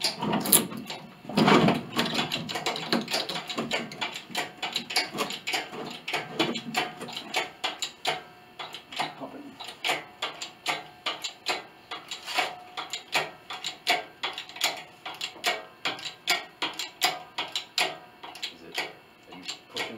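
Hoist lifting a grand piano's plate and pinblock out of the case, with a steady run of sharp mechanical clicks, about two or three a second.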